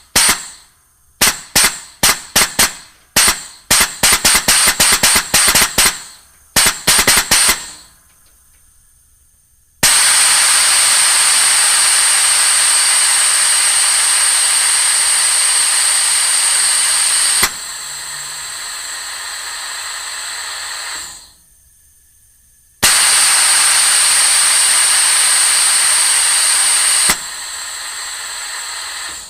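Blasts of air: a quick series of short, sharp puffs, some in rapid clusters, then two long steady hissing blasts. Each long blast drops to a softer hiss partway through before cutting off.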